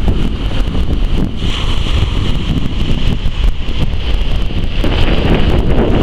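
Loud wind buffeting the microphone: a rough, shifting rumble, with a fainter steady hiss higher up.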